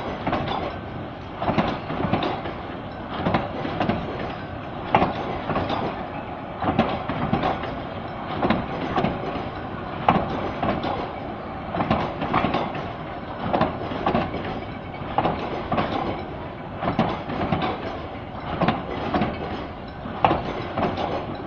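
Bangladesh Railway intercity passenger coaches rolling past close by. The wheels make repeated sharp clacks over the rail joints above a continuous running rumble.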